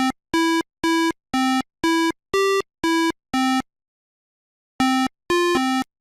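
A simple electronic tune of short, beeping synthesizer notes, about two a second at low-middle pitch. About three and a half seconds in it stops for a second, then resumes with quicker notes that step between two pitches.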